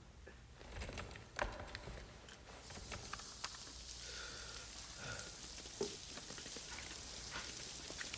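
Rain sound effect: a soft hiss of patter with scattered clicks, slowly growing louder.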